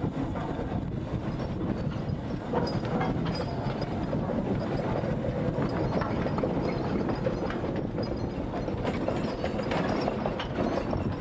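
Fowler B5 steam road locomotive moving slowly past, its engine and gearing running with a steady rumble and many small clanks and clicks, and an iron-wheeled wooden trailer rolling over brick paving behind it.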